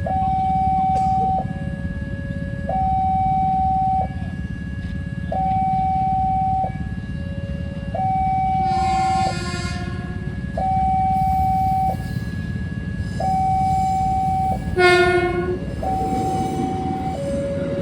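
Railway level-crossing warning alarm sounding a steady two-tone high-low electronic wail, each tone held about a second and a quarter, over a constant low rumble of rail traffic. A horn blasts twice, about halfway through and again near the end; the second blast is short and is the loudest sound.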